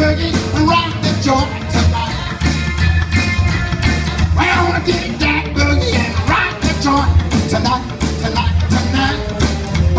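Live rock and roll band playing with a steady drum beat, bass and guitars.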